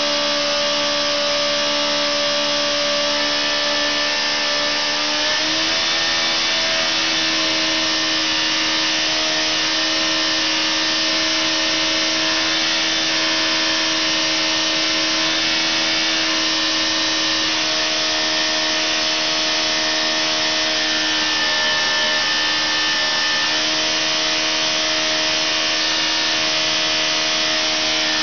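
Engine running steadily on a dynamometer inside the test cell, a loud, even mechanical noise with a steady whine; its speed steps up a little about five seconds in.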